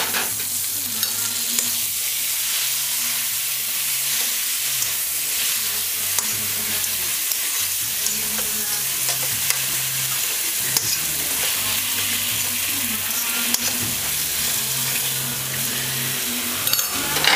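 Chicken, cabbage and diced tomato sizzling steadily in a hot aluminium pot while being stirred, with a few sharp clicks of the spoon against the metal.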